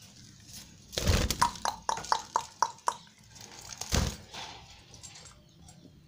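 Wire-mesh bird cage rattling and clinking as it is handled: a knock about a second in, then a quick run of about seven sharp metallic clicks with a short ring, and another knock near four seconds.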